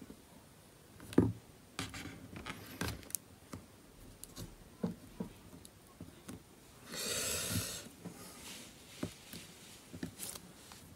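Fingers and a tool handling an opened tablet's frame while adhesive is pressed on along the edge: scattered small clicks, taps and scrapes, with a sharp click about a second in and a short rustling hiss past the middle.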